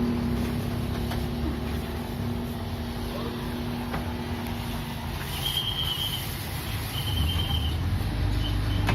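Road traffic: motor vehicles running with a steady low rumble. Short high-pitched chirping pulses repeat a few times in the second half.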